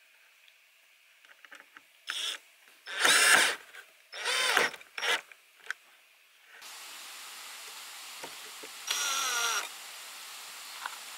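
20V cordless drill driving screws into pine boards: a series of short whirring bursts of the motor, the loudest about three and four and a half seconds in, and one more about nine seconds in.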